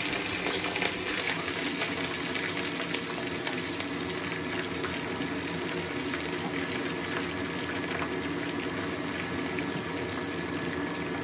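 Frozen French fries deep-frying in hot oil in a kadai: a steady bubbling sizzle.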